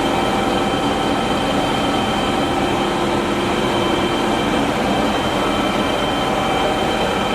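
DoAll by Romi 20" x 120" engine lathe running under power: its gearing gives a steady whine of several held tones over an even mechanical rumble.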